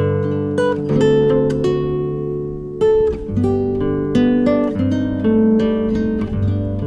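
Background music: acoustic guitar picking ringing chords, with a bass line under it.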